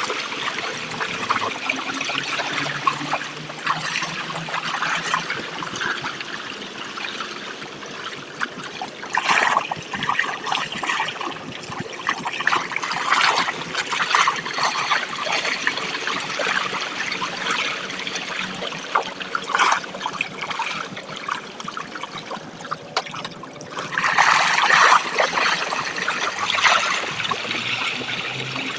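Water trickling and splashing, with louder surges now and then.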